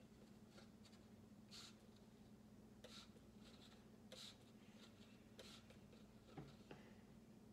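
Faint short hisses of a trigger spray bottle misting water into a biodegradable fibre seed-starting pot, four squirts about a second and a quarter apart.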